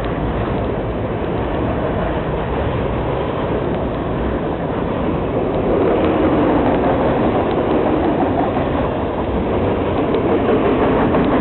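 Freight train of autorack cars rolling past: a steady rumble of steel wheels on rail that grows louder about halfway through, with a few sharp wheel clicks near the end.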